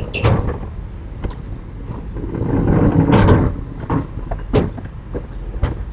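Sliding storm shutters (amado) being worked along their track: a rumbling slide that swells and fades about three seconds in, set among sharp knocks and bangs.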